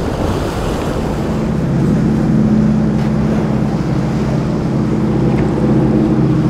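Motorboat engines running steadily, coming up louder about a second and a half in, over surf and wind buffeting the microphone.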